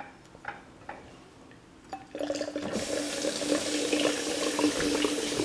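A few light clicks, then from about two seconds in champagne pouring from the bottle into orange juice in a glass bowl: a steady, splashing pour as the drink foams up.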